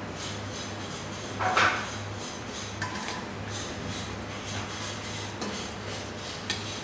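Steel slotted skimmer scraping and clinking against a large steel pan as meat is scooped out of simmering broth, with the loudest scrape about a second and a half in. A steady low hum runs underneath.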